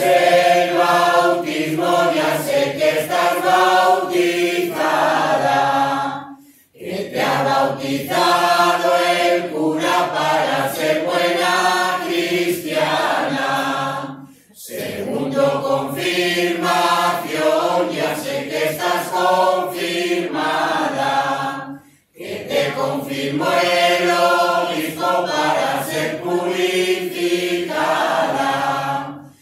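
Mixed choir of men and women singing without instruments, in four long phrases of about seven seconds each with a short breath between them.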